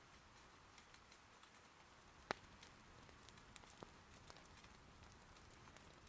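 Faint, steady patter of rain with scattered sharp pops and crackles of firewood burning in an irori hearth; the loudest pop comes a little past two seconds in.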